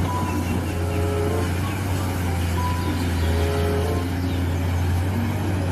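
Steady low machine hum with an even hiss, cutting off suddenly near the end, under background music with short held notes.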